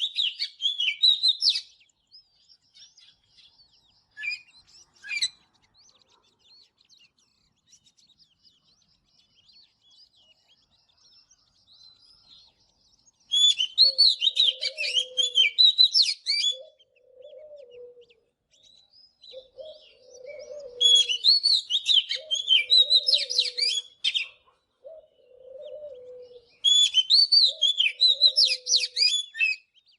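Oriental magpie-robin singing: loud bursts of rapid, varied whistled phrases lasting two to three seconds each, separated by quiet gaps. From about halfway, a separate low note repeats every second or two underneath.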